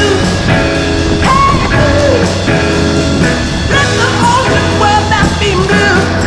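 Rock song with electric guitar and a singing voice over a steady bass line.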